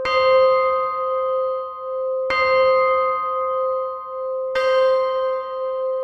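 Big Ben, the great hour bell of the Westminster clock tower, striking the hour: three strokes about two and a half seconds apart, each ringing on into the next with a lingering hum.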